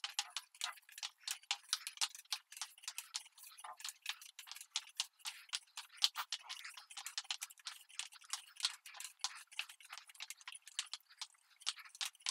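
Fast, irregular crackling and clicking of wet metallic epoxy being worked with a roller and spiked shoes, the tacky coating sticking and releasing over and over.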